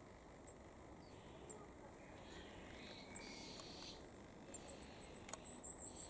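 Faint, very high, thin calls of a goldcrest: a few scattered notes, then a quick run of them near the end, over faint background birdsong. A single sharp click a little after five seconds in.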